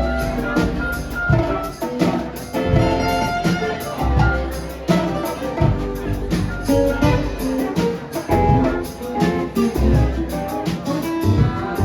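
A band playing live: guitar over a drum kit keeping a steady beat.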